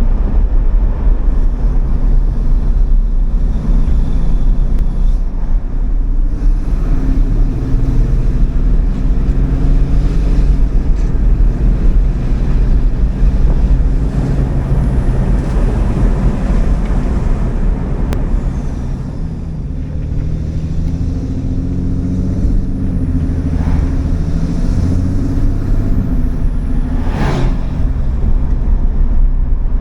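Ram 3500 pickup's 6.7-litre Cummins turbo-diesel engine running while the truck is driven, with heavy road and wind rumble; the engine note rises and falls as it accelerates and eases off.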